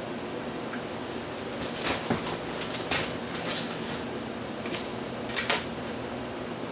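A run of sharp clicks and clatters as a cheap box fan is taken apart by hand to get its motor out, over a steady background hiss.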